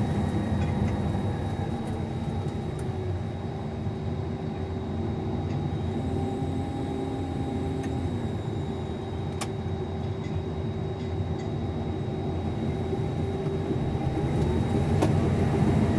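Combine harvester running steadily through soybeans, a constant low machine drone with a thin steady high whine and a few faint clicks, growing slightly louder near the end.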